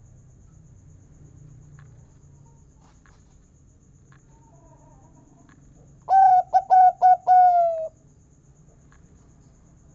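Zebra dove cooing: a single song phrase about six seconds in, a few quick clipped notes running into a longer note that falls slightly in pitch.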